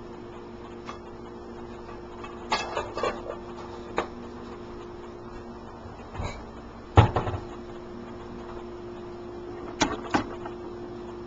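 Fluorescent light ballast humming steadily and loudly, a sign that the ballast needs changing. Over the hum come a few clinks and knocks of a frying pan and utensils on an electric stove, the loudest a heavy clunk about seven seconds in.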